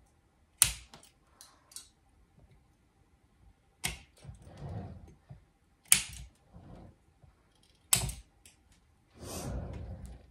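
Hand pruners snipping through the hard wood of Brazilian rain tree branch stubs: four sharp snaps about two seconds apart, each followed by a few small clicks, with a longer rustling noise near the end.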